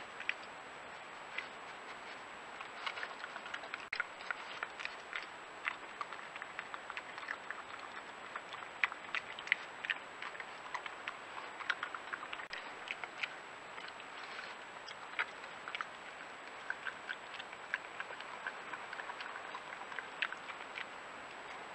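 A badger foraging for peanuts on patio paving slabs: a scattered run of small irregular clicks and crunches as it eats and noses at a wooden feeder box, over a steady faint hiss and a thin high whine.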